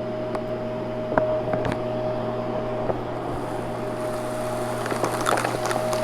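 Vacuum cleaner running steadily with a constant whine and a few faint clicks; crackling starts near the end as it picks up debris.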